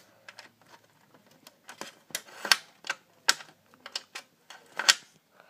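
Irregular sharp clicks and taps of an opened Xbox 360 Slim console's casing and parts being handled, with a few louder knocks.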